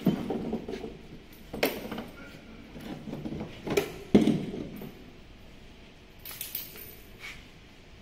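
A few irregular knocks and bumps, the loudest about four seconds in, with a fainter cluster near the end, over low background noise.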